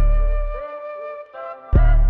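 Instrumental hip hop music: a flute-like melody over deep held bass notes. The bass drops out about half a second in and comes back near the end.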